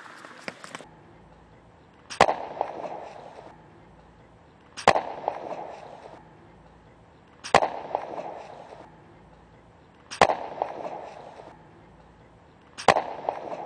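A dubbed-in video-game sound effect: a sharp bang followed by a crackle that fades over about a second, repeated five times at even intervals of about 2.7 seconds.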